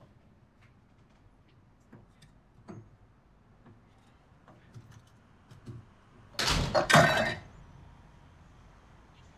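Glassware and dishes handled at a kitchen sink: scattered light clinks and taps, then a loud rush of noise in two surges lasting about a second, some six and a half seconds in.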